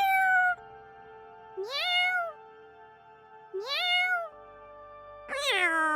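Domestic cat meowing repeatedly: one meow ends just after the start, then three more follow about two seconds apart, each rising and then falling in pitch. Soft background music runs underneath.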